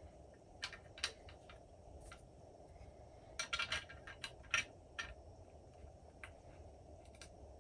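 Faint, scattered clicks and small clinks of metal parts being handled and fitted by hand on a wooden rifle stock, with a quick cluster of clicks about three and a half seconds in.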